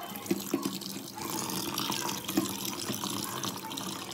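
Kitchen tap water pouring over raw mutton pieces in a colander in a stainless steel sink while the meat is rinsed and rubbed by hand. There is a steady splashing hiss that grows fuller about a second in, with a few light knocks.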